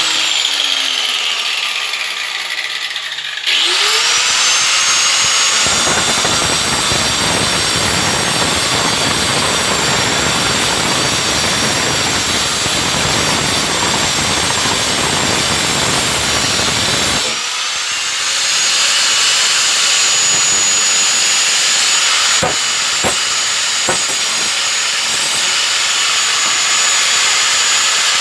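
Circular saw with a metal-cutting disc. The motor winds down, then spins back up about three and a half seconds in. It cuts through metal with a loud, harsh hiss for about twelve seconds, then runs free with a steady whine, with a few clicks near the end.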